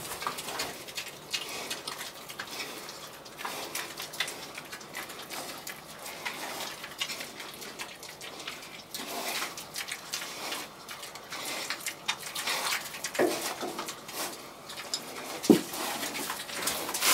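Pigs eating marshmallows from a hand: irregular wet chewing, smacking and snuffling, with rustling in the straw bedding. Two short, louder sounds come near the end.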